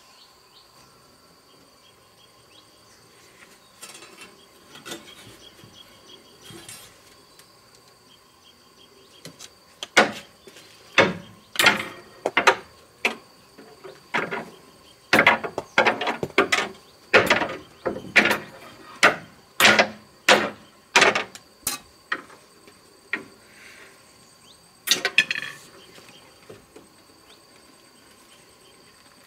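Pliers working a steel tie wire against brick and a wooden frame: a run of sharp clicks and scrapes, about two a second, from about a third of the way in, and one more burst near the end. A steady high insect whine runs behind it.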